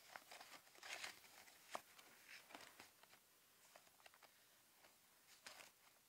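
Near silence with faint rustles and light taps of cardstock and craft supplies being handled on a cutting mat, one sharper tap just under two seconds in.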